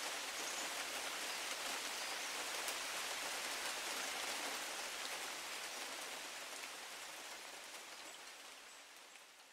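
Heavy rain sound effect: a steady, even hiss of rainfall that fades out slowly over the second half, nearly gone at the end.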